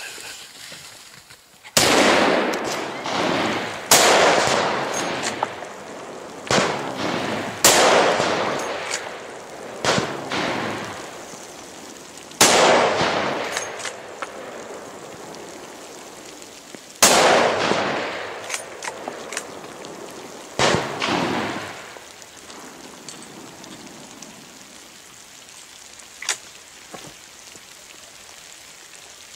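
A series of rifle shots, about eight spread over some twenty seconds, each a sharp crack followed by a long rolling echo that dies away over a second or two. There is a single fainter crack near the end.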